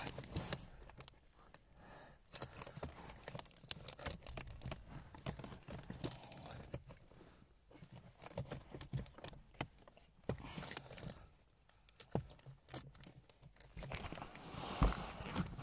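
Gloved hands handling hard plastic trim pieces: scattered short clicks, knocks and rustling, faint and irregular, busier near the end.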